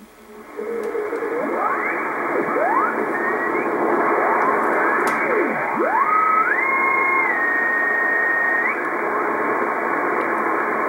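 Icom IC-R8500 communications receiver in CW mode being tuned across the Morse code end of the 15-metre amateur band. Steady band hiss, with the whistling tones of CW signals sliding up and down in pitch as the dial turns past them. One tone holds steady for about two seconds past the middle.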